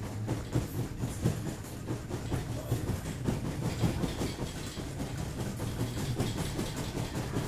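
A bed rattling and knocking in quick, irregular jolts as a man's leg shakes with spasticity, over a low steady hum.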